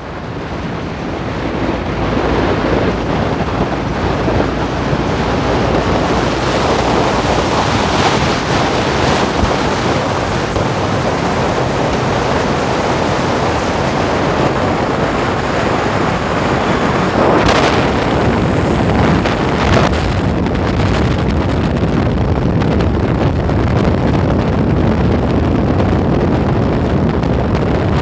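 Wind rushing over the microphone of a moving motorcycle, with the engine running steadily underneath, inside a road tunnel. The wind noise swells briefly louder around the middle.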